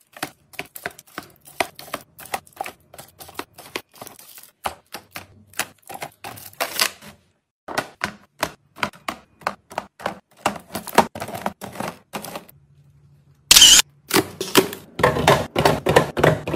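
Small household items being handled and put in place: a busy, irregular run of quick clicks and taps, broken by two short pauses, with one brief louder clatter about three seconds before the end.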